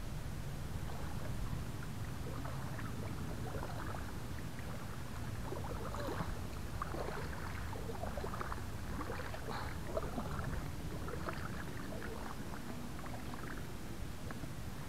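Small water sounds lapping and dripping against a kayak's hull, irregular little splashes over a steady low rumble.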